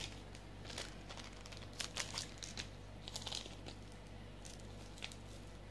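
Faint rustling with scattered light ticks as a jewellery set and its wrapping are handled.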